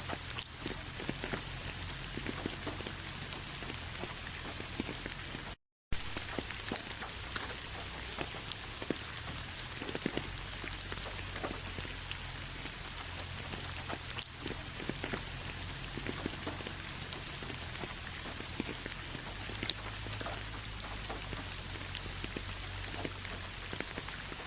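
Steady rain falling, with many individual drops tapping close by. The sound cuts out completely for a split second about six seconds in.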